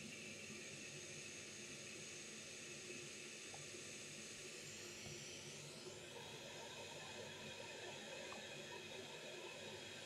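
Faint steady hiss: background room tone.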